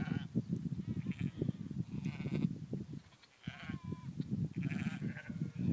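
Distant Faroese sheep bleating, several short faint calls scattered through, over a low irregular rumble of wind on the microphone.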